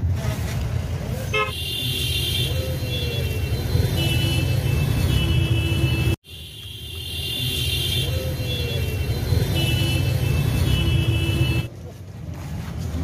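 Busy street traffic: a steady low rumble of engines with vehicle horns honking again and again in short toots. The sound cuts out abruptly about six seconds in and returns, and it turns quieter near the end.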